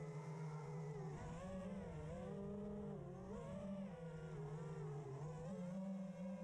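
FPV quadcopter's electric motors whining, several pitches rising and falling together as the throttle changes, over a steady low hum.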